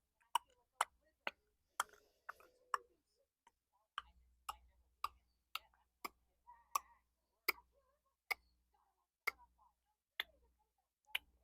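Close-miked ASMR finger licking: wet mouth and tongue clicks, sharp and repeated about every half second to a second.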